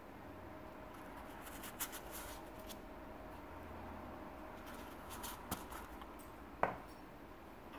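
Small black cardboard box with a foam insert being handled by hand: soft rustling and scraping of the cardboard lid, a few light clicks, then one sharp tap about two-thirds of the way in, the loudest sound.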